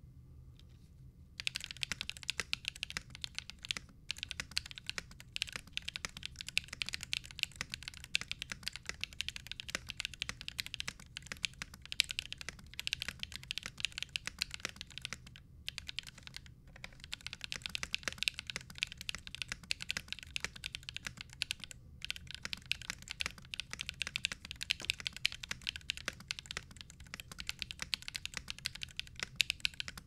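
Fast typing on a 60% custom mechanical keyboard in an acrylic case: a dense stream of keystroke clacks that starts about a second and a half in, with a few short pauses.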